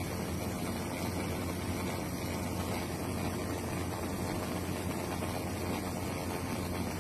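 Steady aircraft engine noise heard from inside the cabin: a constant low drone under a wide hiss.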